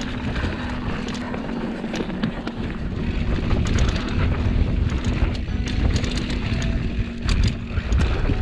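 Full-suspension enduro mountain bike riding fast down a dirt bike-park trail: tyres rumbling over the ground with quick rattles and clicks from the bike over bumps, and wind on the mic. The riding noise gets louder about three seconds in.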